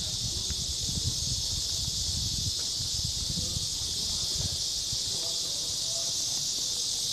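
Steady, high-pitched buzzing chorus of cicadas in the trees, unbroken throughout. Low, irregular thumps and rumble run underneath.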